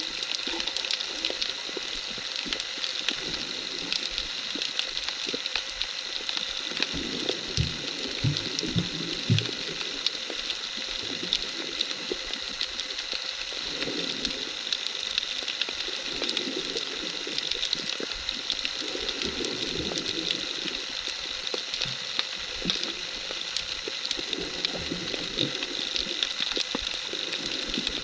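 Underwater sea ambience: a steady hiss full of fine crackling, with low muffled surges of water now and then.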